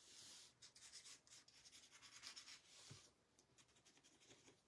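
Faint, quick scratchy strokes of a paintbrush rubbing paint onto a frame.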